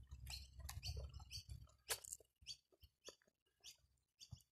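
Small birds chirping in quick, short, high calls, several a second, faint. A low rumble underneath stops about a second and a half in.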